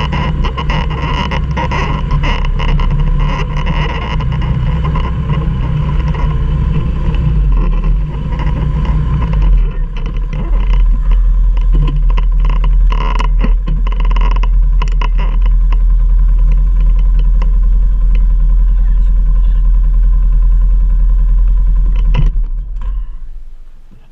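Four-wheeler (ATV) engine running hard under load on a steep climb, with frequent knocks and rattles over it. The engine sound drops away near the end.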